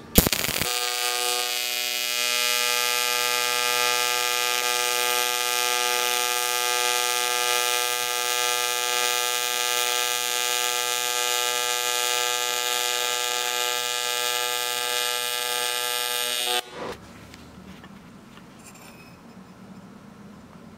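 AC TIG welding arc on aluminum, with the HTP InverTIG 221 set to 125 Hz AC frequency, giving a steady, harsh electrical buzz. It cuts off abruptly about sixteen seconds in when the arc is broken, leaving only faint low noise.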